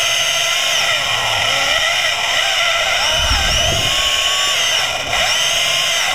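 Stanley hydraulic chainsaw cutting through a wooden dock piling underwater, heard through the water as a loud, steady whine whose pitch wavers slightly as the chain bites. It is a slow cut through this piling.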